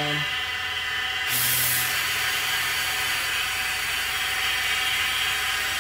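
Compressed air blowing from a flexible nozzle onto the milling cutter, rising suddenly to a loud, steady hiss about a second in as the air is turned up. Under it, the steady whine of the PM-25MV mill's spindle running.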